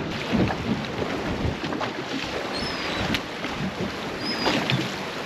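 Wind buffeting the microphone and water washing along the hull of a fishing boat at sea, with scattered low knocks and a few brief high chirps.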